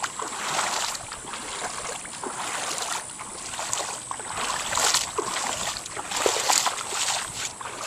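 Floodwater sloshing and splashing, with irregular splashes.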